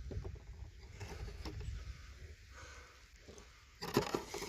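Faint scattered clicks and rustling of hands working a bird feeder, with a cluster of louder clicks near the end, over a low rumble of wind on the microphone.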